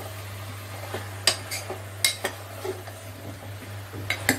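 Metal spoon stirring chopped bottle gourd and masala in a pressure cooker, clinking against the pot about six times, mostly in quick pairs, over a steady low hum.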